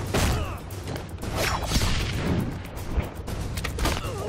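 Action-film soundtrack: score music under fight sound effects, with a steady low rumble and several sharp hits, about a second and a half, two seconds and three seconds in.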